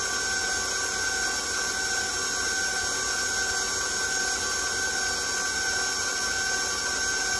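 Electric stand mixer running steadily at medium speed, its beater turning through cake batter, with a constant motor whine.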